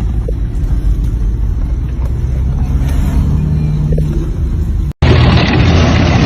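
Motor vehicle engine running with a low, steady rumble. About five seconds in, a cut to a louder rush of wind buffeting the microphone.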